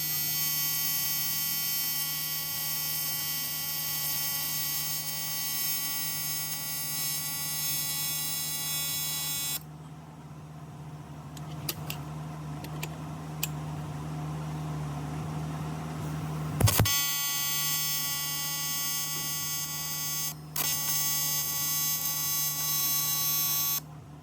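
AC TIG welding arc on aluminum pipe, a steady electric buzz, over the welding machine's low steady hum. The arc runs for about ten seconds and stops, starts again with a sharp click about seven seconds later, breaks off briefly, runs again and cuts off just before the end.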